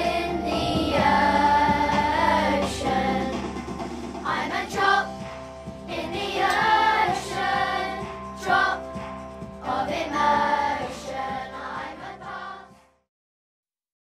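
Children's choir singing a song in unison, the voices fading out near the end.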